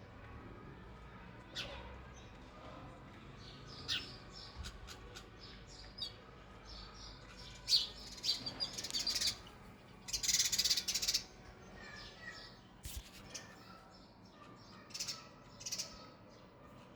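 Sparrows chirping in short, irregular calls, with a denser burst of chirps about ten seconds in.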